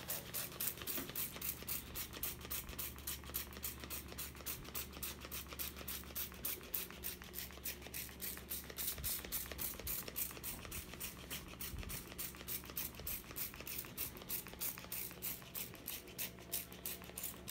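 Plastic trigger spray bottle being pumped over and over, an even run of short spray hisses, several a second, misting liquid onto a fabric mattress top. A faint low hum lies underneath.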